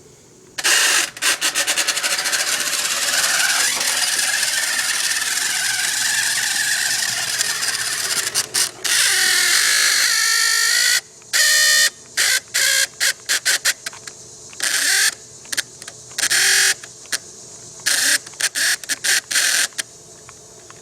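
The small electric motor and gears of a New Bright RC car run with a harsh, whining grind. The pitch wavers for about eight seconds, then rises again, then breaks into many short throttle bursts in the second half. The motor is straining and "not exactly happy", and sounds "kind of angry".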